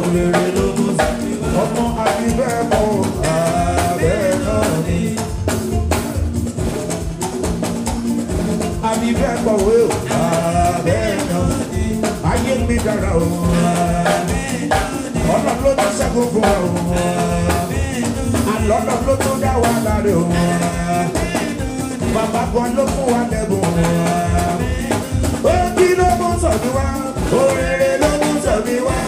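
Live band playing an upbeat song on drum kit and keyboard, with a lead singer singing over the steady drum beat.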